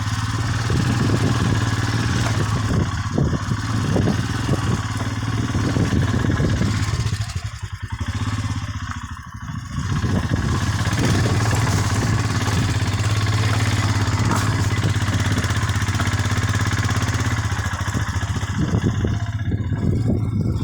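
Motorcycle engine running steadily while riding on a rough off-road track, with a steady rushing noise over it. The engine eases off for a couple of seconds around the middle, then picks up again.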